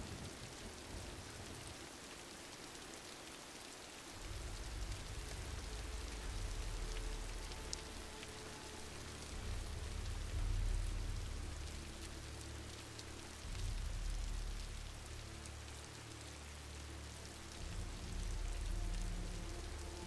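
Heavy rain falling steadily as an even hiss. From about four seconds in, deep low rumbles swell and fade several times under it.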